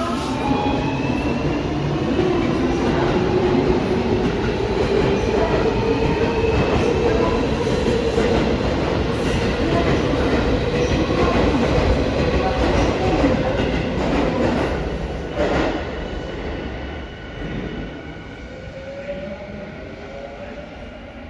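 Yokohama Minatomirai Railway Y500 series electric train heard from inside the car: the motor whine rises steadily in pitch as the train picks up speed. About fifteen seconds in, the whine gives a quick sweep and the sound drops, leaving quieter running noise as the train coasts.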